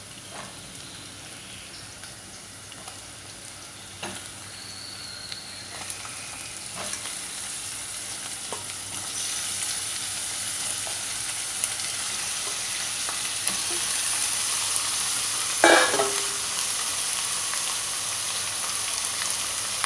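Raw chicken pieces going into hot oil with sautéed onion, ginger and garlic in an enamelled pot and sizzling, the frying hiss growing steadily louder. There are scattered light knocks from the pieces and the wooden spatula, and one louder knock about three-quarters of the way through.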